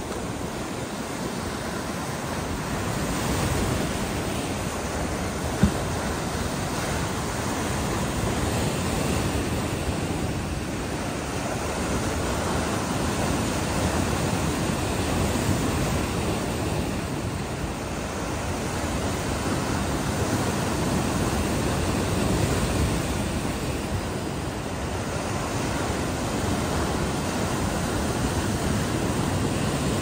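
Sea waves breaking and washing over rocks: a continuous rushing surf that swells and eases every several seconds. A single short click about five and a half seconds in.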